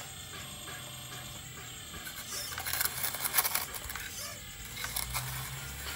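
Radio-controlled hydraulic excavator digging: its pump hums steadily while the steel bucket scrapes and crunches into gravel, loudest about halfway through.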